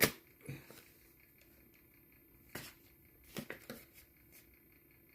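Packaging being handled and opened by hand: a handful of short, sharp clicks and rustles spread through a mostly quiet stretch, the loudest right at the start.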